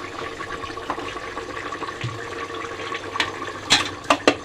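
A pot of liver simmering with a steady hiss. Near the end a spoon starts clacking against the metal pot in a quick, even run of strikes as the newly added curd is stirred in.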